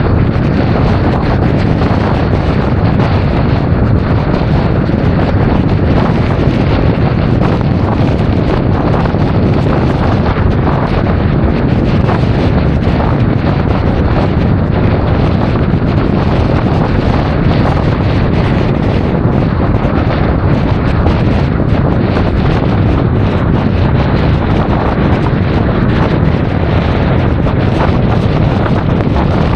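Steady, loud wind buffeting on an action camera's microphone while riding a Honda Forza 350 scooter, a dense rushing noise heaviest in the low end.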